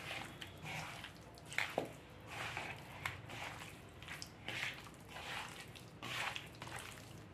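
Wet squelching of bare hands kneading chunks of seer fish in a thick red masala paste in a plastic bowl, in soft, irregular strokes.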